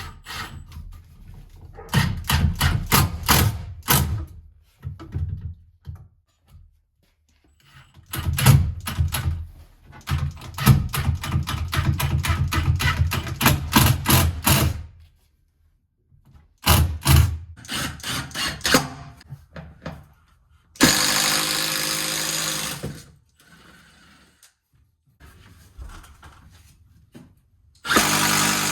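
Rapid clicking and knocking from hand work with tools and hardware, then a power drill running in two steady bursts of about two seconds each, the second near the end, as the electrical box for a light switch is mounted.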